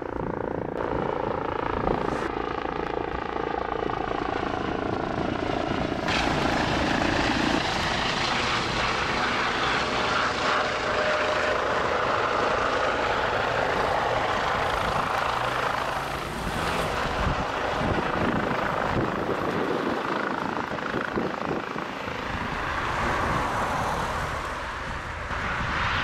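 Police helicopter flying overhead, its rotor and turbine heard as a steady hum. About six seconds in this gives way to the louder, fuller rush of a police helicopter hovering low and setting down on its skids close by.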